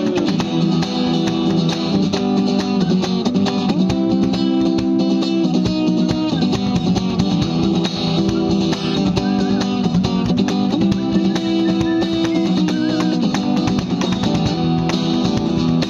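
Guitar strumming chords over a steady cajon beat, played as an instrumental passage with no singing.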